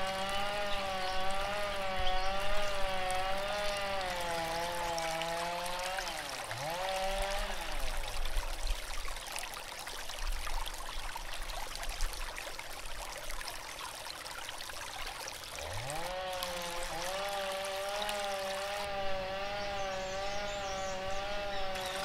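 Stream water trickling and pouring over stones, with a sustained wavering tone over it. The tone dips and glides away about six seconds in and slides back in around sixteen seconds.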